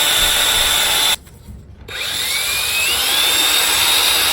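Cordless power tool sanding with 500-grit abrasive: its motor runs with a high, steady whine, stops a little after a second in, then starts again a moment later with a whine that rises in pitch as it comes up to speed.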